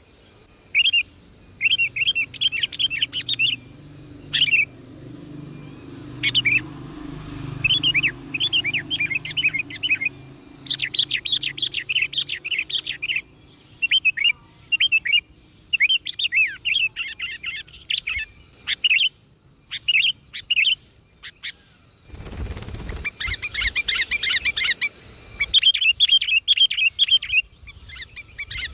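Small birds chirping in quick bursts of rapid twittering, one burst after another. A brief low rumble comes about three-quarters of the way through.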